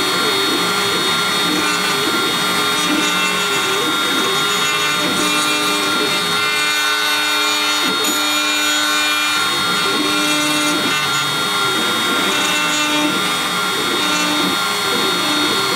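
Shapeoko CNC router milling wood: the spindle runs with a steady high whine as the end mill cuts. Lower stepper-motor tones shift in pitch every second or so as the axes change speed and direction.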